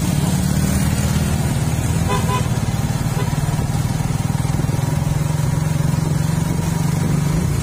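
Suzuki Raider 150 Fi's single-cylinder four-stroke engine running at a steady, even pitch while riding at constant speed.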